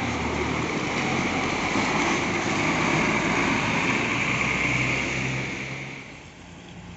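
A coach bus passing close by at low speed, its diesel engine running and its tyres rolling through wet mud and puddles. The sound fades away about six seconds in as the bus moves off.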